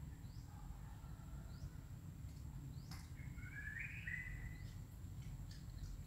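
Faint outdoor background. Short high bird chirps come every second or so over a steady low rumble, with a click and a brief two-part call about three seconds in.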